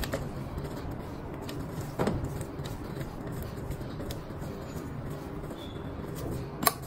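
Clicks and small knocks as a phone is seated and clamped in a tester's fixture: a sharp click about two seconds in and a louder snap near the end, over a steady low hum.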